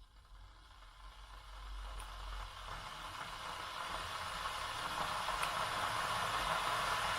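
Gooseneck electric kettle heating water, a steady rushing noise that grows louder throughout.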